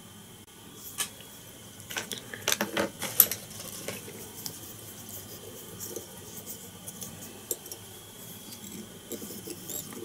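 Light clicks and taps of small fly-tying tools and materials being handled while the glued thread is whip-finished on the hook, sharpest about a second in and between two and three seconds in, then fainter.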